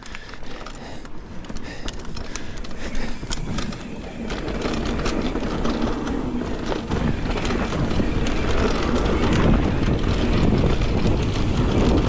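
Mountain bike riding down a dirt singletrack trail: a steady rush of tyre and wind noise with many small rattling clicks from the bike, growing louder about four seconds in.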